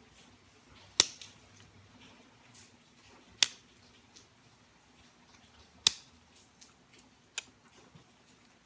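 Hand-held pressure flaker notching a stone arrowhead, each flake snapping off with a sharp click: three loud clicks about two and a half seconds apart, then a fainter one near the end.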